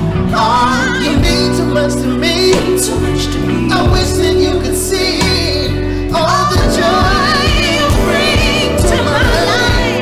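A song with sung vocals over backing music: wavering, held notes with vibrato over steady bass.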